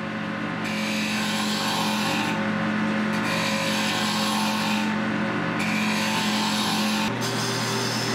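Grizzly G0462 variable-speed wood lathe running at about 2,900 rpm with a steady motor hum, while a turning gouge cuts into the spinning wooden handle blank with a rough scraping hiss as shavings come off. The cutting noise drops out briefly twice between passes. The hum changes about seven seconds in.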